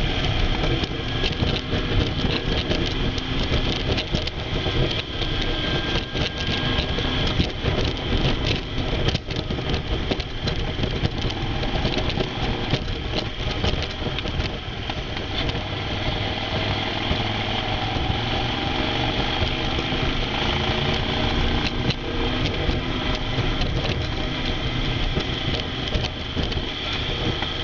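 Moto Guzzi Stelvio's V-twin engine running at road speed with heavy wind rush on the bike-mounted microphone, the engine note rising and falling with the throttle through the bends.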